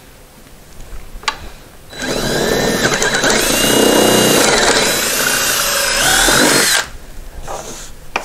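Cordless drill boring a pilot hole into a wooden stair tread. It starts about two seconds in and runs for about five seconds, its pitch rising and falling with the trigger, then stops.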